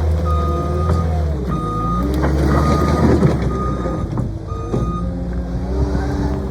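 Cat 259D compact track loader's diesel engine running and changing pitch under load, with its backup alarm beeping five times, about once a second, as it reverses.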